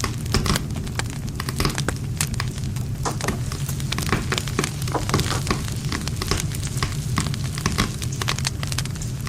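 Wood fire burning, with frequent irregular pops and crackles over a steady low rumble of flames.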